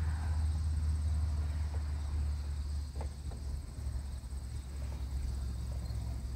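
Outdoor background: a steady low rumble with a thin, steady high-pitched tone over it, and a couple of faint clicks about three seconds in.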